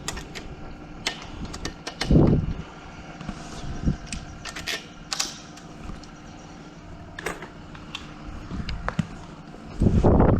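Metal lock hardware and screws being handled and fitted to a door, scattered light clicks and ticks, with two loud dull thumps, one about two seconds in and one near the end.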